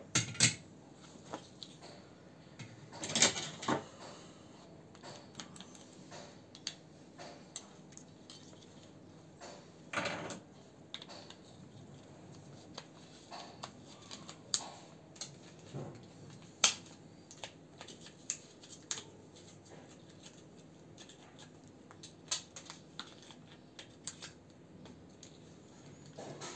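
Scattered small clicks, taps and rattles of hand work on a Dacia Sandero's horn and indicator stalk switch while its broken internal wires are replaced. Louder clatter comes just after the start, around three seconds in and about ten seconds in.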